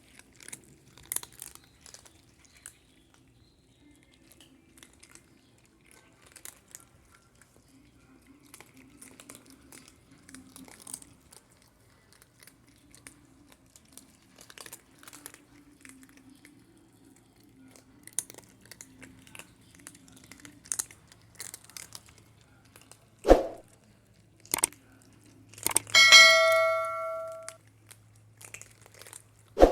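Cats crunching dry kibble, faint small crunches and clicks. Near the end come two sharp knocks and then a loud metallic clang that rings for about a second and a half.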